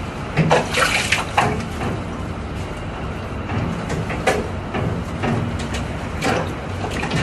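Water running steadily from a wall tap and splashing over a wet dog in a concrete sink, with a few sharp splashes and knocks.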